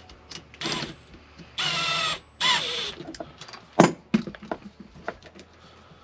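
Cordless drill-driver running in three short bursts, its motor whine rising and falling in pitch as it drives the screws that tighten the mounting band around a blower motor, with a sharp knock about four seconds in.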